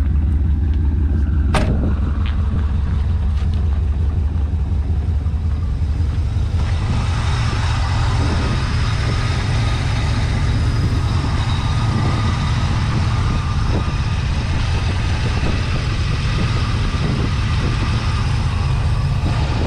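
1980 Pontiac Trans Am Turbo's turbocharged 4.9-litre V8 idling steadily and sounding pretty good. The sound gets brighter and fuller from about seven seconds in, heard close to the open engine bay.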